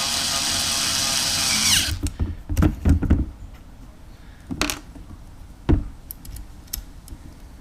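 Electric drill driving a screw into a scooter carburetor, its motor whining steadily for about two seconds, then winding down in pitch as it stops. A few sharp clicks and knocks of tools and parts being handled follow.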